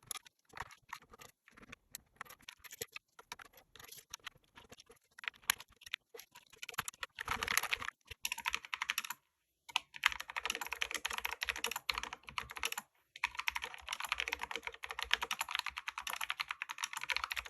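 ABKO Hacker K640T Slim mechanical keyboard with quick-lubed red linear switches being typed on. Keystrokes come one at a time at first, then turn into fast continuous typing about seven seconds in, with two brief pauses.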